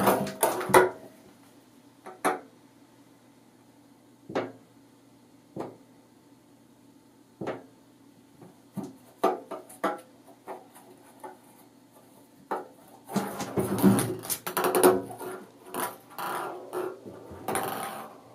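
A ping pong ball tapping and bouncing around inside a bathtub as a kitten bats it. For about twelve seconds there are scattered single taps, then a few seconds of rapid rattling clusters.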